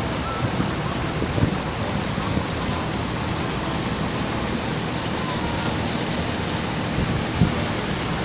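Steady rushing noise aboard a boat under way on a river: the boat's engine running under the hiss of water and wind. There is a brief knock near the end.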